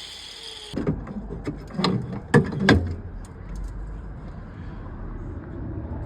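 A handful of knocks and clunks, the two loudest about two and a half seconds in, over a quiet steady background.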